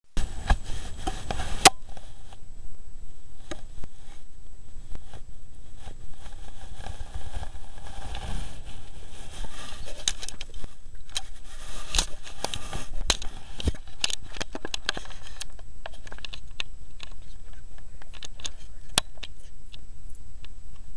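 A weasel scratching and rustling about in a tent-style hunting blind: irregular scrapes and sharp clicks, thickest from about eight to fifteen seconds in.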